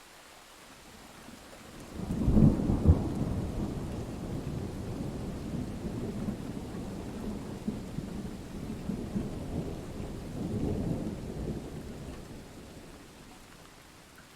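Thunder over a steady hiss of rain: a sharp crack about two seconds in opens into a long low rumble that swells again near the end before dying away.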